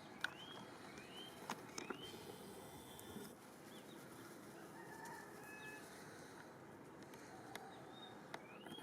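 Faint, short rising bird chirps, repeated every second or so over a low outdoor hiss, with a few sharp clicks.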